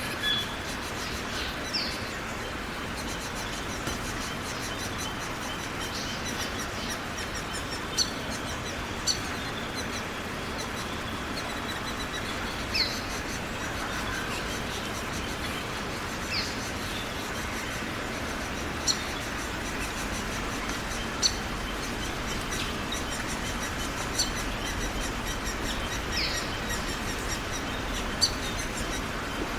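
Steady rain falling, with a bird giving short, high chirps every few seconds.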